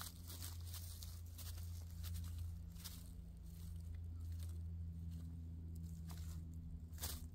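Low steady outdoor rumble with faint rustling of dry leaves underfoot and a few light ticks.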